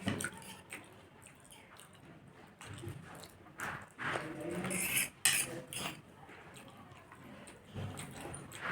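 Chewing and mouth sounds of someone eating, close to the microphone, with short clicks throughout and a louder stretch about four to five seconds in.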